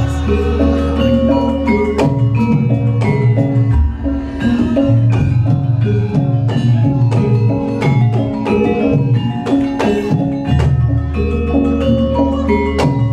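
Music played loud through a sound system during a sound check: quick struck mallet-percussion notes over a deep, held bass.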